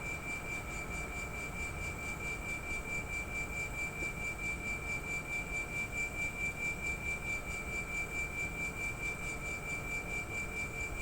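Air conditioner outdoor unit's compressor running with a steady high-pitched whine over a low rumble, an abnormal noise from the compressor.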